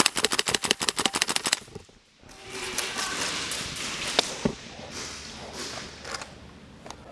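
A rapid full-auto burst from a KWA LM4 gas blowback airsoft rifle, about a dozen shots a second for roughly a second and a half. After a short pause comes the noise of quick movement, with a couple of sharp knocks.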